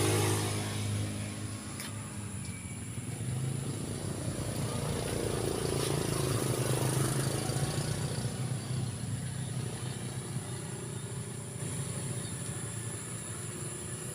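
A motor vehicle engine running steadily, swelling louder in the middle and easing off again, with a steady high-pitched whine above it.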